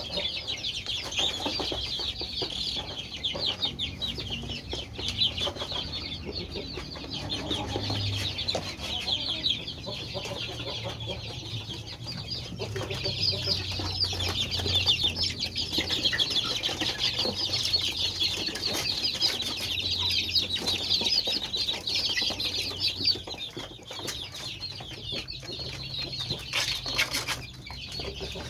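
A flock of five-week-old kampung (Indonesian native) chicks peeping constantly, many short high calls overlapping without a break.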